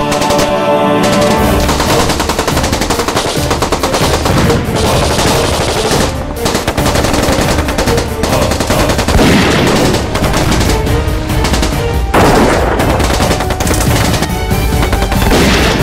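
Sustained automatic gunfire from several Kalashnikov-pattern assault rifles firing long, overlapping bursts, with no real pause. Music plays underneath.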